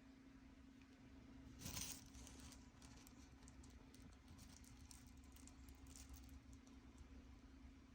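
Faint crackling and ticking from a tied plastic trash bag of rubbish, with one louder crinkle about two seconds in followed by scattered small clicks.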